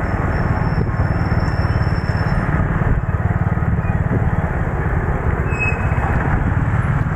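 Motorcycle engine running steadily under way, a dense low pulsing rumble with road noise over it.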